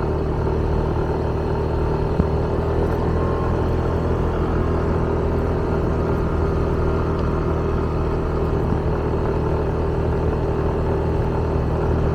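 Motorbike engine running steadily at an even pitch while riding along.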